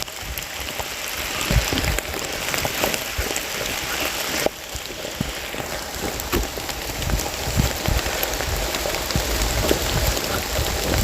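Rain falling steadily, with many drops pattering and ticking on leaves and the ground. Scattered low thuds run underneath.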